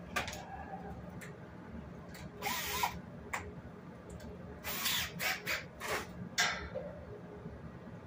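Cordless drill driven in several short bursts, one about two and a half seconds in and a cluster between about five and six and a half seconds, while caster wheels are fastened to a metal rack frame.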